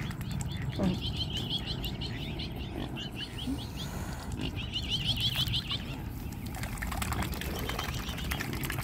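A flock of mute swans and cygnets feeding in shallow water: splashing and dabbling of bills, with two runs of high, rapid peeping calls in the first half and more clicks and splashes later on.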